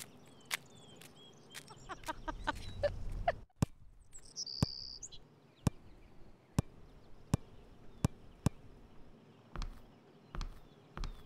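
Footsteps of sneakers walking over grass and paving: a quick run of taps about two seconds in, then single sharp steps roughly once a second and softer thuds near the end.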